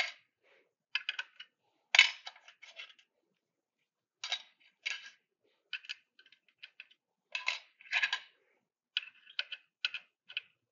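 Irregular light metallic clicks and clinks of small mounting screws and metal fittings being handled while a screw is worked into the laser head's mount on the column, coming in short clusters with the sharpest about two seconds in.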